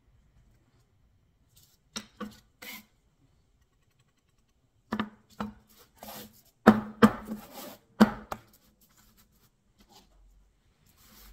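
Sharp knocks and scrapes from a small painted board being handled, moved and set down on a paper-covered tabletop. There are a few light knocks about two seconds in, then a busier run of knocks from about five to eight seconds in, the loudest near seven and eight seconds.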